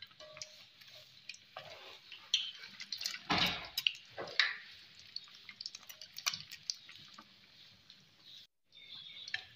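Egg-coated sandwich shallow-frying in hot oil in a pan: steady sizzling with many sharp crackles and pops, and the spatula knocking and scraping against the pan as it is turned, loudest about three and a half seconds in.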